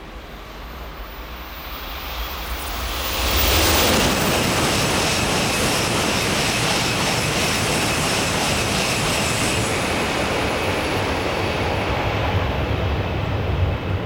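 N700-series Shinkansen passing through a station at high speed without stopping: a rushing roar that swells over the first few seconds, then holds loud and steady as the train sweeps past.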